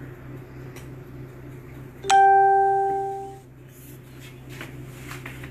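A single bell-like chime about two seconds in: one clear pitched ding that fades away over about a second, over a steady low hum.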